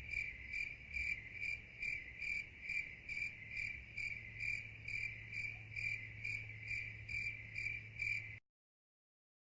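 Short, high-pitched chirps repeating evenly, about two and a half a second, over a faint low hum; both cut off abruptly about eight seconds in.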